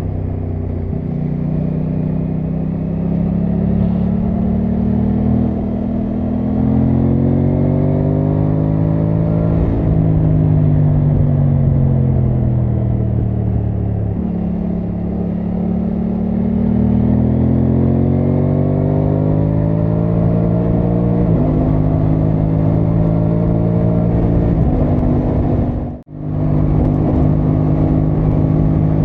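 Aprilia Tuono 660 Factory's parallel-twin engine under way, its pitch rising for several seconds and then falling, twice, as the bike speeds up and slows. Then come a couple of quick pitch steps and a steadier run. The sound cuts out for a split second about 26 seconds in.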